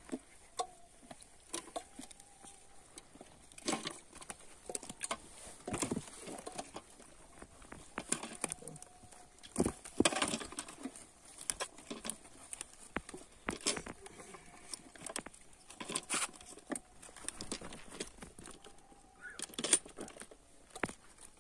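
Irregular patter and knocks of small live fish flapping on a plastic tarp and being dropped into steel bowls and an aluminium bucket. The loudest clatter comes about ten seconds in, as a bowl of fish is tipped into the water-filled bucket, and there is another sharp knock near the end.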